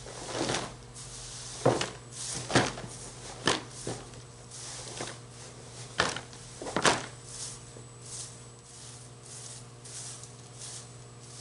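Plastic garbage can being handled while dry mulched leaves are gathered into it: five sharp knocks in the first seven seconds, with leaf rustling and scraping between them, then softer rustling.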